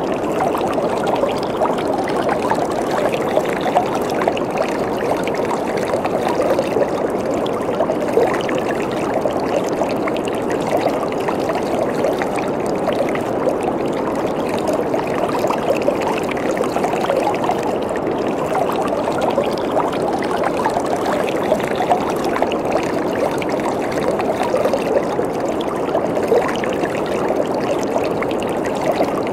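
Waterfall: water falling and splashing in a steady, dense rush.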